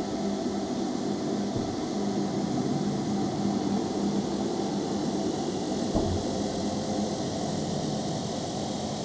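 A steady, dense droning noise with a low hum and a hiss above it, and a single soft knock about six seconds in.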